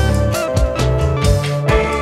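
Instrumental electronic music: held deep bass notes under a drum beat and steady melodic tones.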